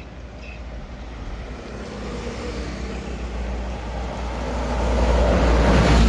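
A heavy road vehicle's engine approaching and growing steadily louder, building to a close pass with a rush of engine and tyre noise near the end that then drops away suddenly.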